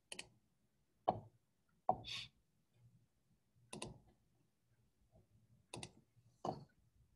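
Computer mouse clicking: about six separate, faint clicks a second or so apart, some heard as quick double clicks.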